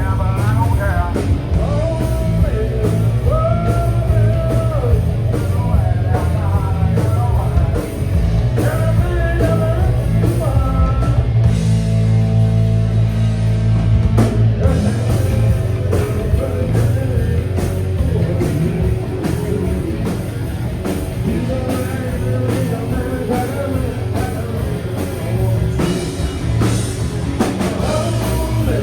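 Live grunge rock band playing a song: a singing voice over guitars, bass and drum kit. Near the middle the singing drops out for about three seconds over a held chord.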